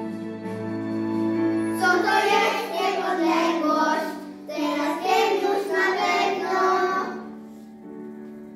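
A group of young children singing a song together over steady instrumental accompaniment. The voices drop away for a moment near the end.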